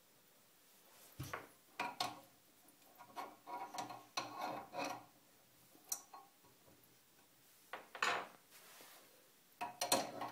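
Metal spanner clinking and scraping on a threaded hose fitting as the connection at a bidet diverter valve under a toilet cistern is tightened. Irregular clinks and rubs begin about a second in, with a sharper clink near the end.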